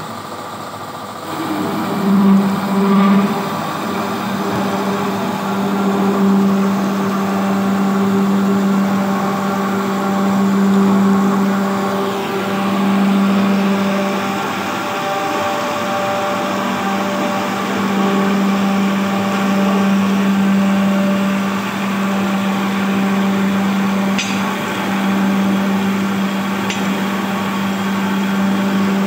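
Horizontal band saw running, its blade cutting through a clamped bundle of eleven metal pipes at once: a steady low machine hum that grows louder about a second in and holds.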